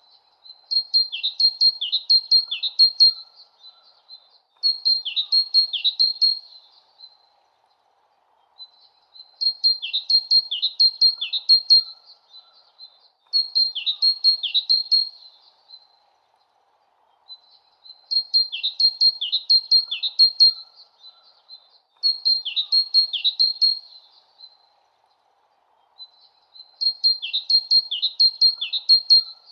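A small songbird singing the same high chirping phrase over and over, about seven times with short pauses between. Each phrase is a quick run of chirps with a few fast downward-swooping notes.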